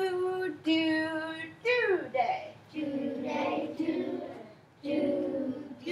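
A woman sings a short phrase, then a class of children sings back in unison in two phrases: echo singing of rhythm patterns.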